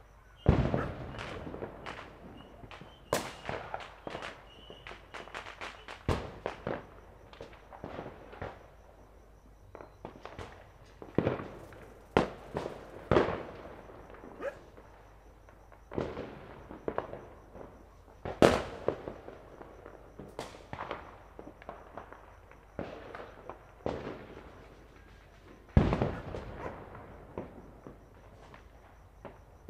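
Christmas-night fireworks and firecrackers going off all around, a scattered, irregular string of sharp bangs and cracks, each with an echoing tail. A few are loud, many fainter. The loudest bangs come about half a second in, near the middle and near the end.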